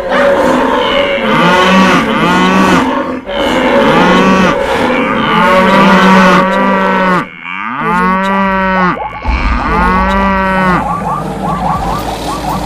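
Cattle mooing: about six long moos, each roughly a second, one after another over a steady noisy background.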